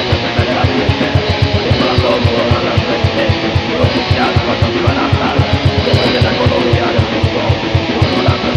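Thrash metal song: heavily distorted electric guitars riffing over fast, even kick-drum beats and frequent cymbal hits, the full band playing at a driving tempo.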